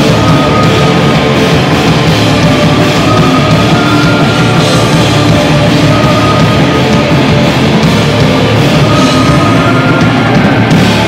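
Live band playing loud heavy rock: electric bass and a drum kit with cymbals, playing steadily without a break.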